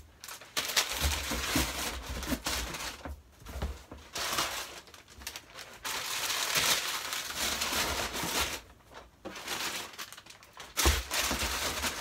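Wrapping crinkling and rustling as wrapped toy blasters are handled and packed into a cardboard box, with bumps against the cardboard. There is a louder knock near the end.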